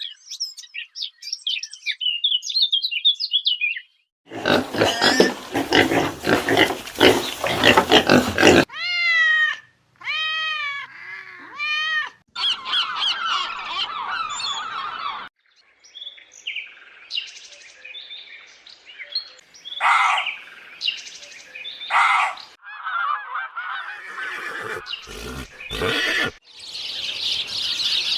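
A run of different animal calls, one clip after another: high chirping, a harsh noisy cry, a series of five calls that rise and fall in pitch, short scattered cries, and more high chirping near the end.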